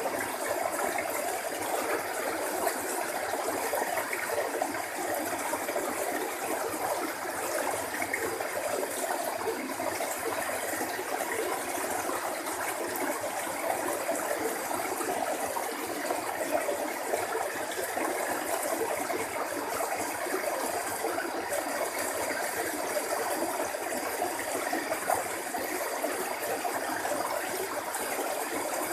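Steady rushing of flowing water, even and unbroken, with a faint steady high whine above it.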